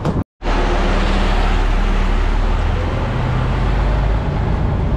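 Tractor engine running steadily while pulling a manure tanker, heard inside the cab: a constant low hum under a broad rush of noise. It starts abruptly after a moment of silence near the beginning.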